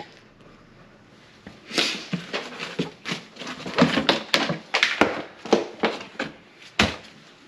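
Objects being handled and set down inside the cabinet under a kitchen sink. After a quiet start comes a quick run of short knocks and rustles, with one heavier thump near the end.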